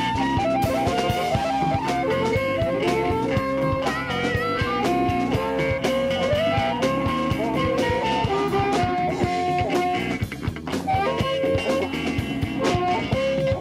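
Blues-rock music: a guitar plays lead lines with bending notes over a drum kit.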